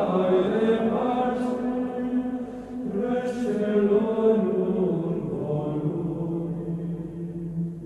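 Slow sung chant: sustained vocal lines moving slowly in pitch, with the phrase fading out near the end.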